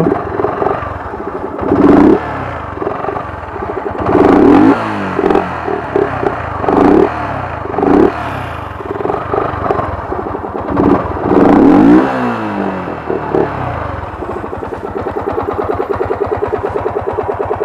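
Yamaha R15 V2's single-cylinder four-stroke engine, through a loud exhaust, revved in about six sharp throttle blips while standing, each rising and falling back. Near the end it settles to a steady idle with a fast, even pulsing beat.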